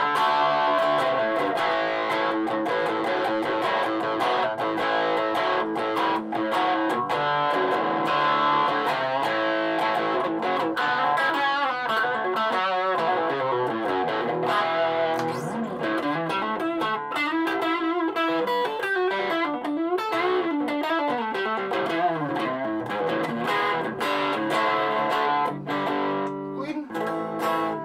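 Electric guitar on its humbucker pickup, played through a Donner 5-watt mini amp with distortion. It plays held chords for about the first ten seconds, then fast lead lines with wide string bends and vibrato.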